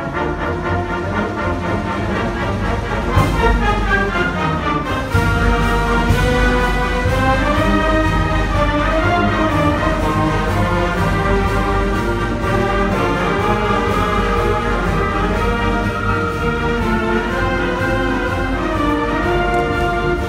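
Concert band of woodwind and brass players performing, with sustained chords and a steady percussion beat. The music gets suddenly louder about five seconds in.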